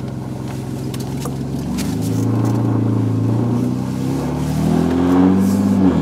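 Mercedes 190E's inline-six engine heard from inside the cabin while driving, running on all six cylinders with the misfire cured. Its note climbs as the car accelerates about two seconds in, eases, then climbs again and drops sharply just before the end.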